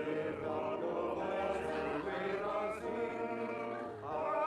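A man's voice singing a slow hymn-like line in long held notes, in the manner of a chant or choir.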